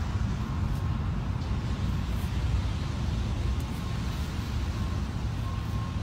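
Steady low rumble of background noise, even throughout, with no distinct event standing out.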